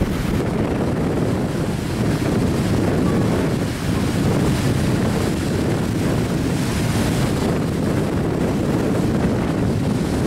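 Wind buffeting the microphone as a steady low rumble, over the wash of choppy sea waves.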